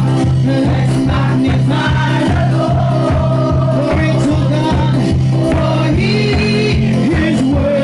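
Gospel worship music with a steady beat, bass and voices singing.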